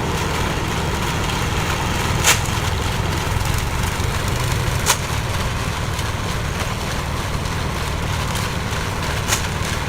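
Concrete mixer's engine running steadily, with three sharp clinks, at about two, five and nine seconds in.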